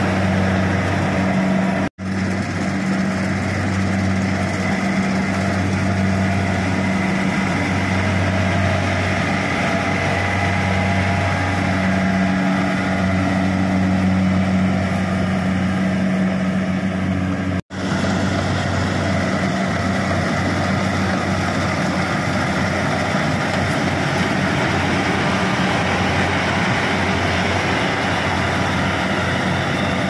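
Kubota DC-70 Pro combine harvester's engine and machinery running steadily under load, a constant low hum with a broad mechanical din over it. The sound is broken twice by brief cuts, about 2 seconds and 17 seconds in.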